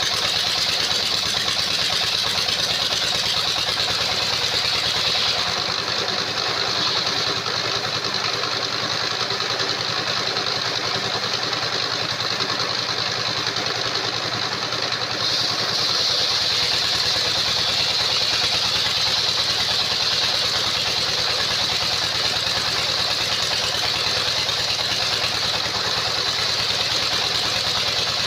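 Engine-driven circular-blade sawmill running steadily with a high whine. The whine and the deepest part of the sound drop away for about ten seconds from around five seconds in, then come back.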